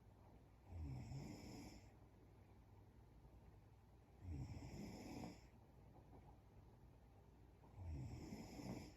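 A sleeping woman snoring quietly: three snores, each about a second long, coming about every three and a half seconds.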